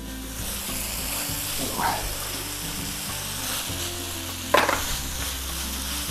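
Diced vegetables sizzling steadily in a hot wok with soy and oyster sauce while a spatula stirs them. Two sharp knocks, one about two seconds in and a louder one a little before the end, sound like the spatula striking the wok.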